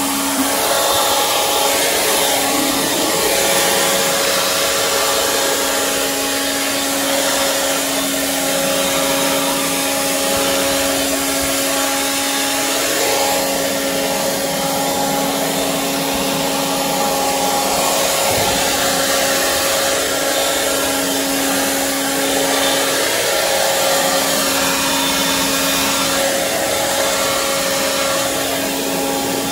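Handheld leaf blower running steadily, blowing leaves and debris across a concrete walkway: a rush of air with a steady whine that dips briefly a few times.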